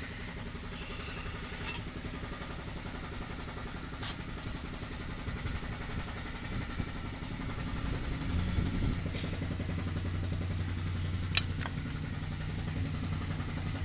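A low mechanical rumble with a few faint clicks. About eight seconds in, a motor starts and runs with a steady low hum.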